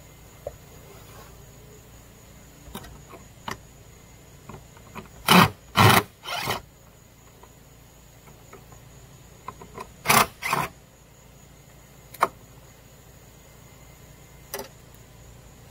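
Cordless drill driving screws in short bursts: three runs close together about five to six and a half seconds in, and two more around ten seconds. Light clicks and taps of handling fall between. The screws refasten a gutter that has pulled away from the fascia.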